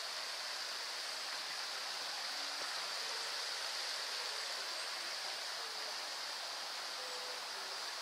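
Shallow woodland stream running over stones, a steady rushing babble of water.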